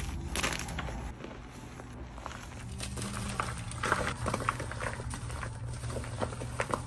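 Hands squeezing and crushing dyed gym chalk blocks, which crumble with soft crackling crunches and a few sharper snaps, over a faint steady low hum.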